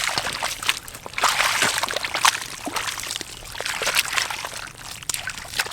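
Shallow water sloshing and splashing in repeated irregular surges, with small wet clicks and drips.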